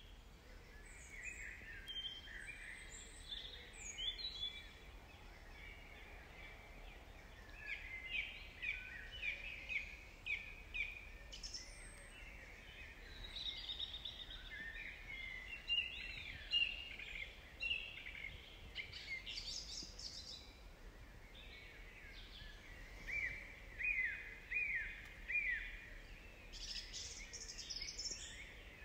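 Woodland birdsong: several small birds chirping and singing, with quick runs of repeated falling notes, over a faint steady low hum.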